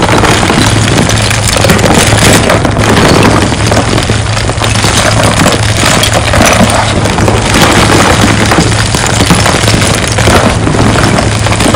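Crushed chunks of gym chalk scooped by hand and let fall back into a tub: a continuous dense, crunchy clatter of small hard pieces knocking and grinding together, the glassy sound of hard chalk.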